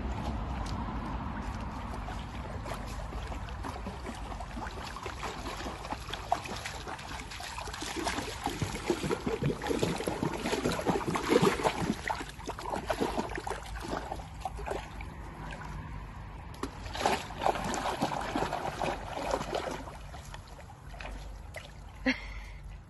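Water splashing and sloshing as a cocker spaniel wades and noses about in a shallow stream, in irregular bursts that are loudest around the middle and again past three-quarters of the way through.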